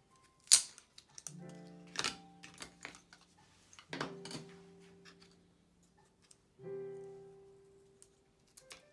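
Background music of slow keyboard chords, three of them, each held and fading. Over it come sharp clicks and taps of plastic MacBook Air speaker assemblies being handled; the loudest click is about half a second in, and more follow near two and four seconds.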